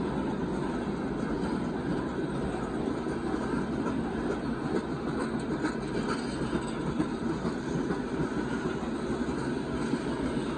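Loaded open-top hopper cars of a Union Pacific rock train rolling past: a steady rumble of steel wheels on the rails.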